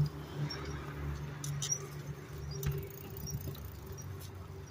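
Bicycle being ridden, with a small high squeak repeating at an even pace about once a second, a few sharp clicks and rattles, and a steady low hum underneath.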